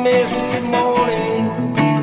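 Acoustic band music: a strummed acoustic guitar keeps a steady rhythm, with a held melody note over it that bends down slightly past the middle.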